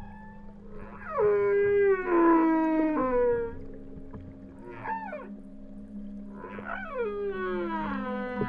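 Whale calls: long moans with many overtones that slide steadily downward in pitch, one starting about a second in and another near the end, with a short call that rises and falls in between, over a steady low drone.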